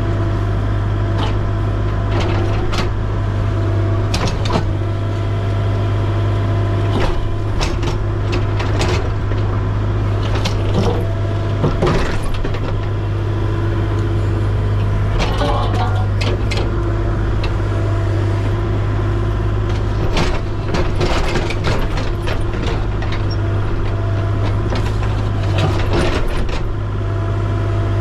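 A heavy diesel machine's engine running steadily, with frequent short clanks and knocks over it.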